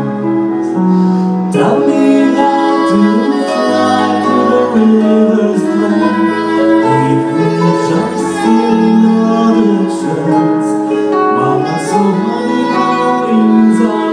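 Live band music: melodic notes held about a second each over sustained chords, with no break.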